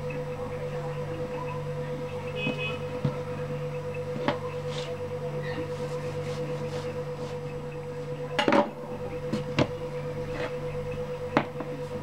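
Scattered clicks and knocks of a kitchen knife and hands against the countertop as a sponge cake is cut into layers and the layers are moved, the loudest a short cluster about eight and a half seconds in. A steady hum runs underneath.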